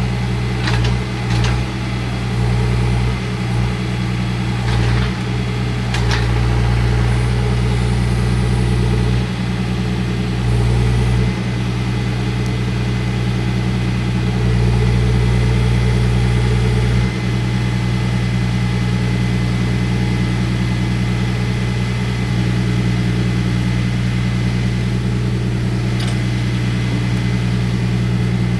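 John Deere 4044M compact tractor's four-cylinder diesel engine running steadily, its level shifting a few times. A few short knocks or clicks come in the first few seconds and once near the end.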